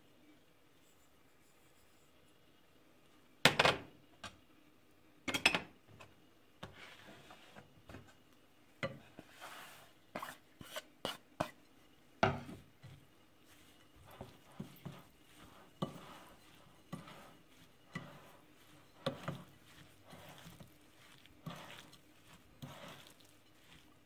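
A slotted spoon scraping and tapping against a glass mixing bowl in irregular strokes as rice and chopped herbs are stirred together. Two louder knocks of kitchenware come a few seconds in, about two seconds apart.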